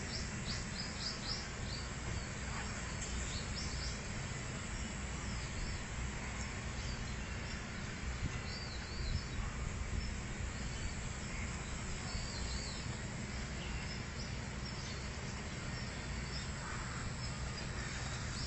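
Outdoor ambience: small birds chirping over a steady low rumble. A quick run of high chirps comes in the first two seconds, and a few warbling calls follow near the middle.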